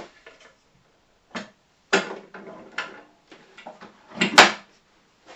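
Metal track-saw guide rail being handled and laid onto a plywood dog-hole bench top against its track dogs: a string of knocks and clatters, the loudest about four seconds in.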